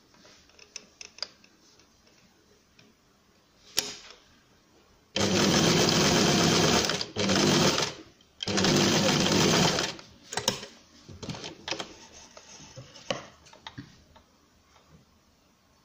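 Domestic electric sewing machine stitching through felt in three short runs, starting and stopping, the longest under two seconds. Light clicks and taps of handling come before and after the runs.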